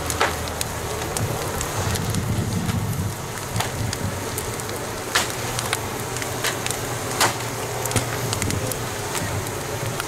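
Large bonfire burning around a wooden ship, a steady rushing noise broken by sharp crackles and pops every second or two.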